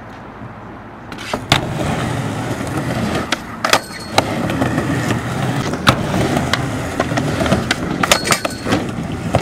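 Skateboard riding a quarter-pipe ramp: a steady rumble of the wheels rolling starts about a second in, broken by several sharp clacks of the board and trucks hitting the ramp and the coping.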